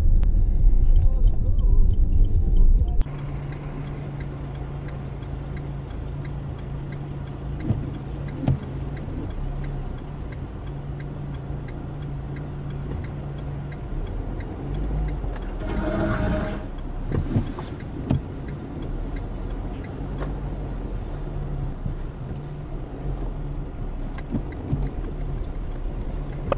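Dashcam audio inside a car in traffic: a loud low rumble for the first few seconds, then a quieter, steady low engine and road hum. A short, louder sound comes a little past halfway.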